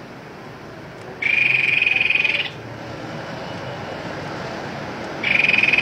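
A tepus babbler giving its reel call, a fast, even trill held on one pitch for about a second and a quarter. It sounds twice: about a second in, and again near the end.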